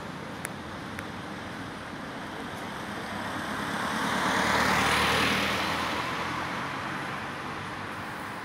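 A road vehicle passing by, its noise swelling to a peak about halfway through and then fading away.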